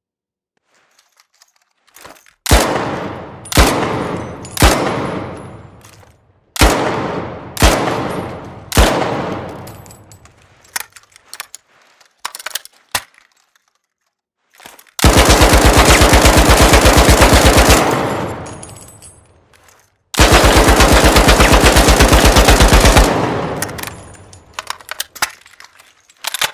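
Lewis gun firing: two groups of three single shots, each ringing off, then a few light mechanical clicks. Two bursts of rapid automatic fire follow, each about three seconds long, and more clicks come near the end.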